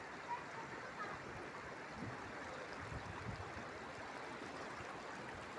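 Faint, steady rush of flowing floodwater from the swollen Krishna river.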